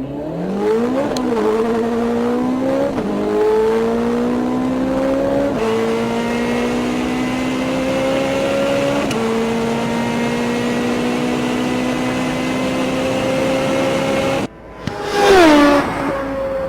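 Sports car engine accelerating hard through the gears: the note climbs and drops sharply at each upshift, about 3, 5.5 and 9 seconds in, then holds steady. Near the end it cuts off abruptly, and a loud rev follows that falls away.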